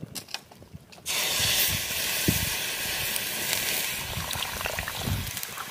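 Water poured into a very hot iron kadai with a stone in it, hissing as it flashes into steam to set up steaming. The hiss starts suddenly about a second in and slowly fades.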